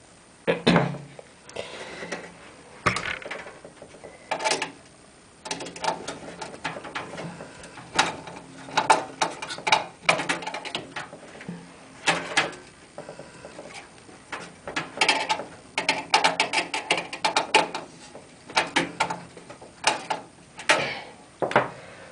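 Screwdriver and small screws clicking and scraping against a computer case as motherboard screws are driven in, in quick runs of small ticks with pauses between.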